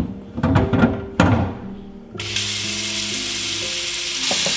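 A wooden end-grain butcher block knocks several times against a stainless-steel sink as it is set down. About two seconds in, the kitchen tap comes on and water runs steadily onto the board.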